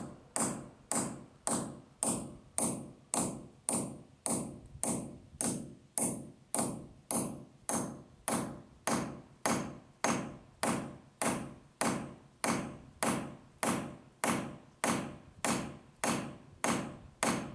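Hammer striking a hand drill fitted with a half-inch bit, drilling a bolt hole by hand into very hard concrete. Steady blows come about two a second, each with a short metallic ring.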